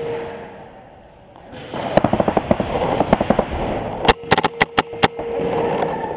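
Paintball markers firing in rapid strings of sharp pops: a fast run of shots about two seconds in, then about seven louder shots a second later, close to seven a second.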